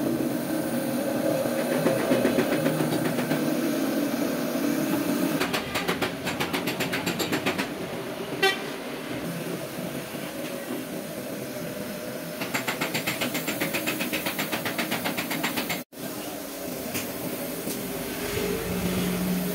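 Workshop noise: a steady hum for the first few seconds, then two spells of rapid, even clicking or rattling, a single sharp click between them, and a brief dropout late on.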